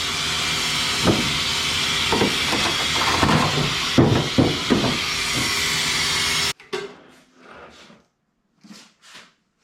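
Loud, steady rushing noise with several knocks and clunks over it, cutting off suddenly about six and a half seconds in, then a few faint short knocks.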